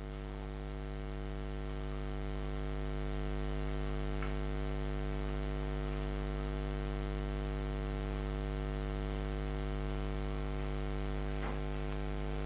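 Steady electrical mains hum with a stack of buzzy overtones, picked up in the microphone's audio chain while no one speaks. Two faint ticks sound, about four seconds in and near the end.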